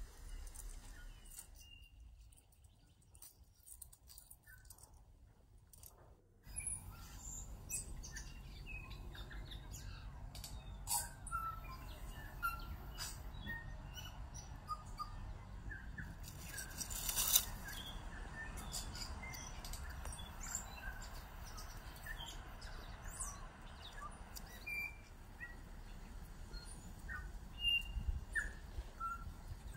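Outdoor birdsong: several small birds chirping and calling in short, scattered notes, over a steady low background rumble, with one brief louder rasp about halfway through.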